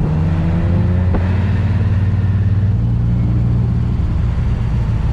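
Car engine running hard under acceleration. A faint rising note climbs over the first second and breaks off with a sharp click about a second in, then the engine runs on steadily.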